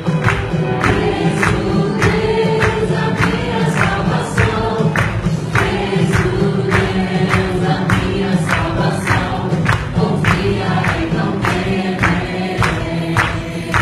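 Loud live worship music: many voices singing together in chorus, with a sharp beat about twice a second.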